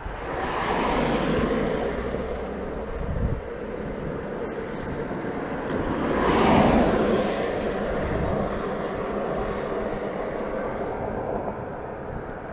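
Cars passing on the road bridge overhead: two swells of tyre and engine noise, one about a second in and a louder one about six seconds in.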